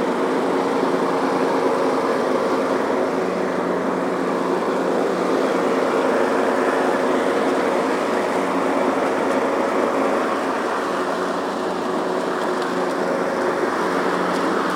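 Riding lawn tractor's engine running steadily while mowing, with the mower blades spinning.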